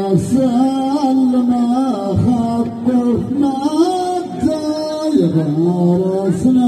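Unaccompanied male singing in the Amazigh ahwach style: a chanted melodic line of held notes that slide from one pitch to the next, dipping to a lower note about five seconds in.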